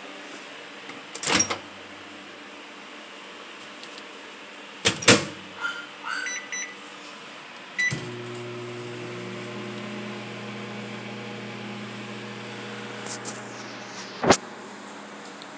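Countertop microwave oven being worked: two loud clacks, a quick run of keypad beeps and one more beep, then the oven running with a steady hum for about six seconds, cut off by a loud click near the end.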